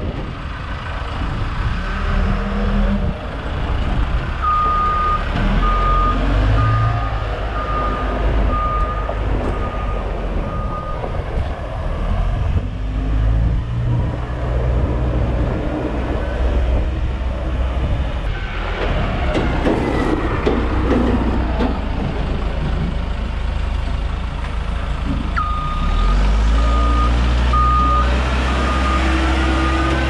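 Heavy diesel machine running, with its reversing alarm beeping at an even pace in two runs: one a few seconds in and one near the end as it backs up. The engine revs up near the end.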